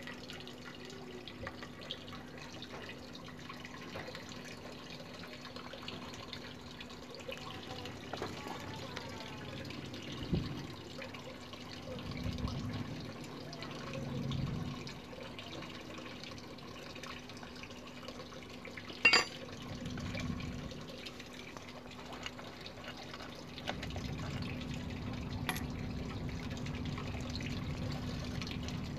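Quiet knocks and handling noises of a scooter's rear brake caliper and hose being worked off by hand, over a steady hum, with one sharp click about two-thirds of the way through.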